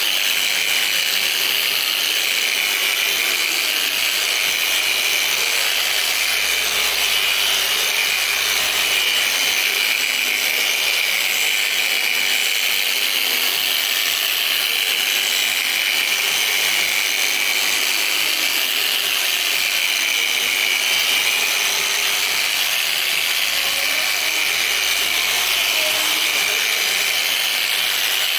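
Dual-action polisher with a foam pad running steadily against car paint: a continuous motor whine and pad hiss during a machine-polishing paint enhancement.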